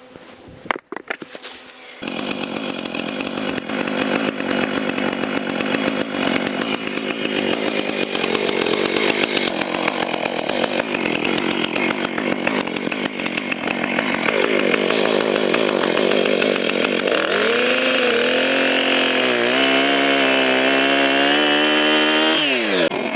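Chainsaw running and cutting into wood, starting about two seconds in after a few sharp knocks. In the last few seconds its engine note rises and falls.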